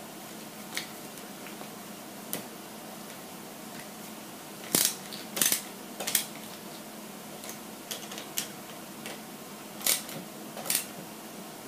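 Small screws being tightened by hand into the rear leaf spring mounting of a 1/14-scale Tamiya King Hauler RC truck: scattered light clicks and taps of the hand tool and the small parts, a few at a time, over a faint steady hum.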